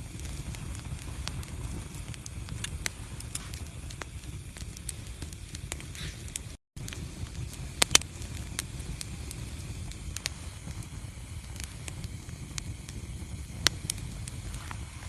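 Wood fire in a fireplace crackling, with scattered sharp pops over a low steady rumble; the loudest pops come as a pair about halfway through and once more near the end. The sound cuts out for a split second just before the pair.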